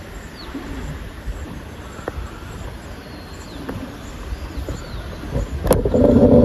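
Outdoor ambience after the chime has ended: wind rumbling on the microphone, with a few faint bird chirps. About five and a half seconds in comes a sharp click, then a brief, louder low hum.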